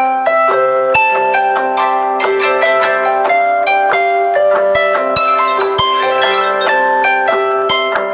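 Samsung phone ringtone melody: a quick run of plucked, harp-like notes over a held low note.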